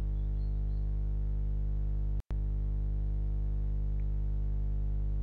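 Steady low electrical hum with a stack of overtones, typical of mains hum picked up in the recording. It cuts out for an instant about two seconds in.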